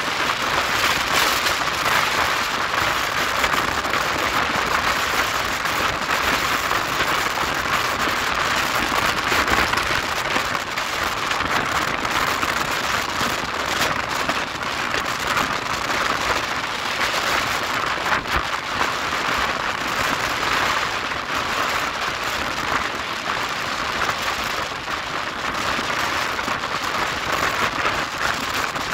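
Steady rush of wind and wheel-on-rail noise from the Maurya Express running at speed, heard from an open coach door.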